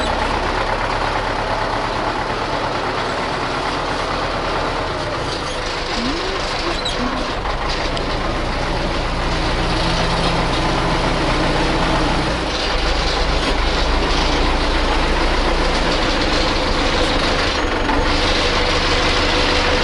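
Diesel tractor engine running steadily as the tractor is driven slowly into a shed.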